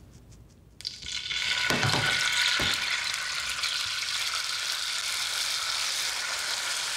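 Hot olive oil in a frying pan sizzling as tomato sauce is poured into it. The sizzle starts suddenly about a second in and then runs on steadily.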